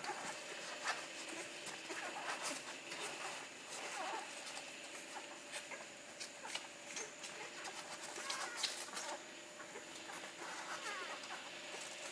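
Two-week-old Labrador puppies suckling at their mother: soft wet clicking and smacking, with a few small squeaks and grunts.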